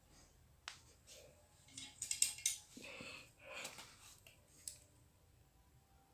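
Faint handling sounds of nylon monofilament cast-net line and scissors: a small click under a second in, then about two seconds of scratchy rustling, and another small click later on.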